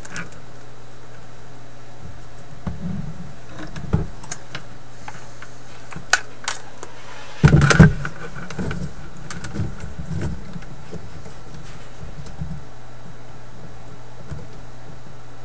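Scattered clicks and knocks of a multimeter and its test leads being handled in a wooden record-player cabinet, the loudest a short clatter about seven and a half seconds in, over a steady low hum.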